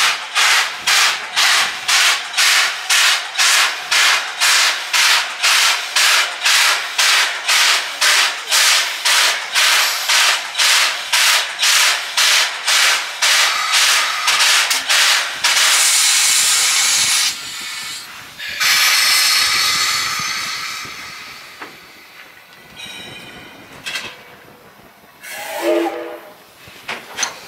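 Class C10 steam locomotive standing with steam puffing out in an even rhythm, about two and a half puffs a second, typical of its steam-driven air pump at work. About halfway through, the puffing gives way to two long hisses of steam, and then it goes quieter.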